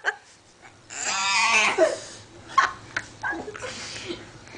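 A baby vocalizing: one louder squealing, cry-like sound about a second in, then a few short, softer sounds.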